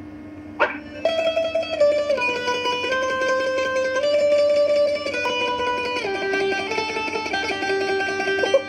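Music led by a plucked-string instrument, mandolin-like, playing a rapidly picked melody in stepping notes over a held low note; it comes in fully about a second in.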